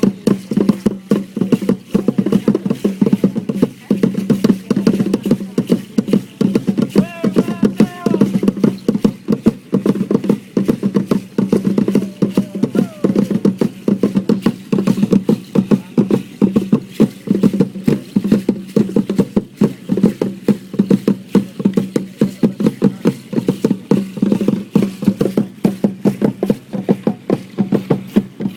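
Dance drum beaten in a fast, unbroken rhythm of strikes, with a short wavering call about seven seconds in.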